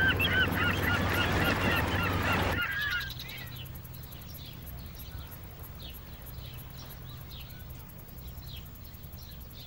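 Gulls calling in a rapid run of short, wavering cries over a low steady drone of harbour and boat-engine noise. The calls stop suddenly about two and a half seconds in, leaving quieter outdoor ambience with faint, high, thin bird chirps.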